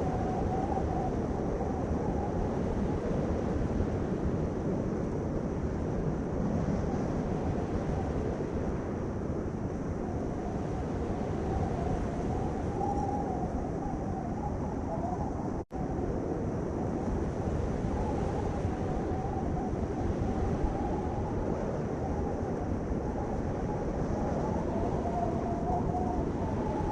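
Steady low rumble of a moving vehicle with a faint wavering whine over it. It cuts out for an instant about sixteen seconds in.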